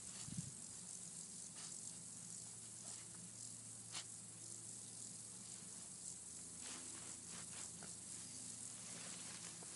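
Faint rustles and crackles of tall grass as a small dog pushes and pokes through it, over a steady hiss and a faint low hum.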